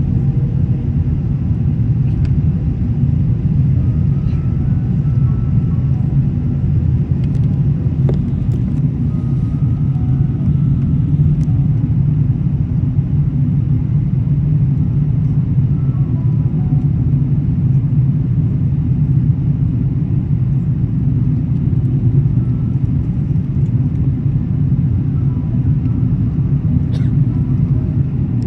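Steady low rumble of an Airbus A380 airliner, with a few faint ticks.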